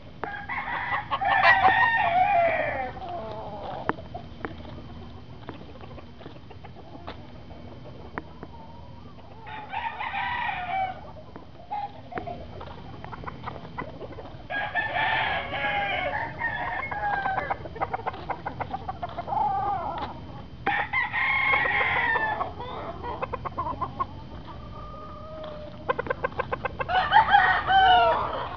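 Roosters crowing repeatedly, about five long crows a few seconds apart, with some clucking between them.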